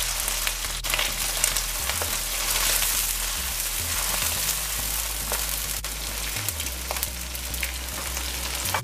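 Small Guyana black shrimps frying in hot oil in a wok: a steady sizzle with fine crackling as they are stirred with a wooden spatula, with a couple of sharp clicks.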